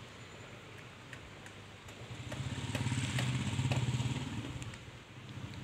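A motor vehicle's engine with a low, fast-pulsing note, growing louder about two seconds in and fading again about three seconds later as it passes close by.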